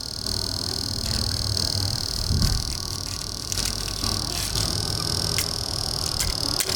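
Steady high-pitched chorus of calling animals, with scattered short clicks and a low rumble underneath.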